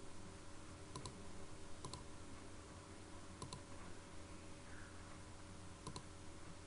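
Computer mouse clicking while lines are drawn in a CAD sketch: four clicks, each a quick press-and-release pair, spaced unevenly about a second or more apart, over a faint steady low hum.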